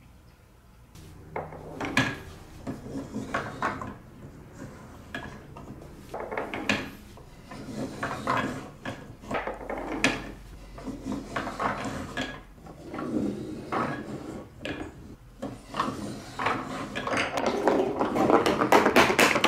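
Hand-cranked stepped lift of a Trix Track marble run clacking, with plastic balls knocking and rattling as they are carried up. The clicks come irregularly at first and grow thicker and faster near the end.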